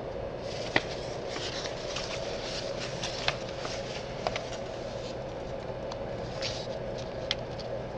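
Steady mechanical hum in a room, with scattered rustling and a few sharp clicks on top.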